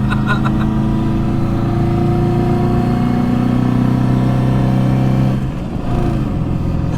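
Subaru EJ22 2.2-litre flat-four pulling at full throttle in second gear, its note climbing slowly. About five and a half seconds in, the throttle comes off and the engine note drops.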